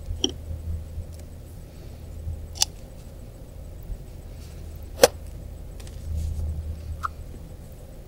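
A few sharp clicks and taps of paintbrushes and art supplies being set down and picked up on a tabletop, the loudest about five seconds in, over a steady low hum.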